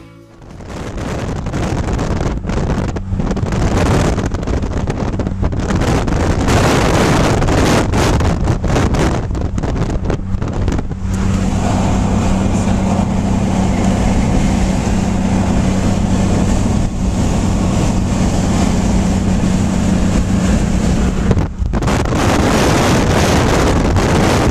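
Strong storm wind gusting against the microphone, loud and uneven. A steady low hum joins about halfway through and stops near the end.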